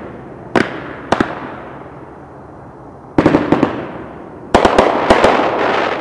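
Black Cat Tuxedo Nights aerial firework going off: two sharp bangs in the first second or so, then a quick cluster of cracking reports about three seconds in, and a denser volley of crackling reports near five seconds. Each echoes away.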